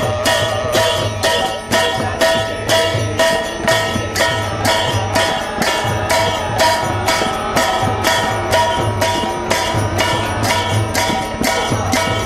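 Kirtan music: large brass hand cymbals (kartals) struck in a steady rhythm about three times a second, ringing on, over the beat of a two-headed hand drum.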